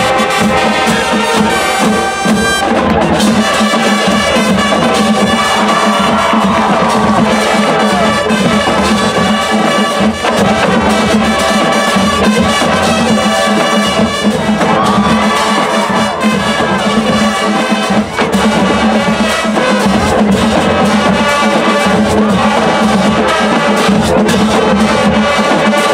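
High school marching band playing: trumpets and sousaphones over snare drums, bass drums and cymbals.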